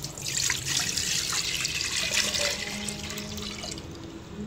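Milk poured in a steady stream from a plastic jug into a metal cooking pot, splashing and gurgling, tailing off near the end as the pour stops.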